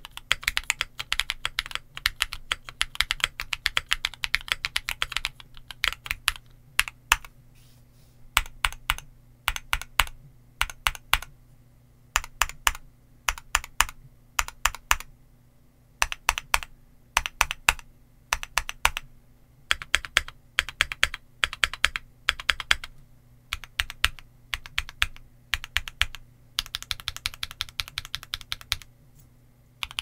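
Typing on a Luminkey80 mechanical keyboard with Gateron Sylva switches and doubleshot PBT keycaps. A run of steady typing is followed by short scattered groups of keystrokes with pauses between them, then a fast flurry near the end.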